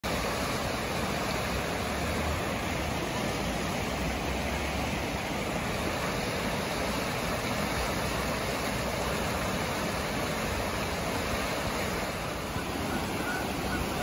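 Fast river water rushing over a low weir and churning through rapids, a steady, even rush of whitewater.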